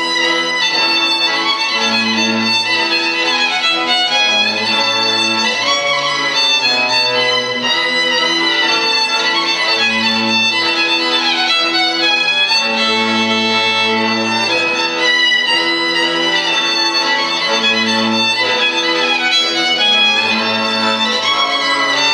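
Violin playing a Hungarian folk tune over a steady, regularly pulsing bass accompaniment from a small string band.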